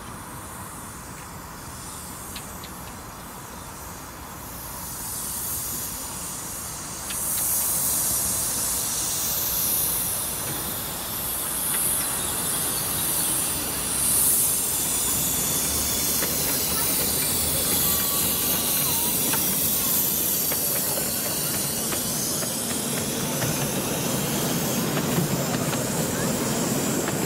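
Miniature replica Bulleid Merchant Navy Pacific steam locomotive passing, with steam hissing loudly around its cylinders and chimney. The hiss swells about five seconds in and comes in pulses. Near the end its passenger carriages roll past on the rails.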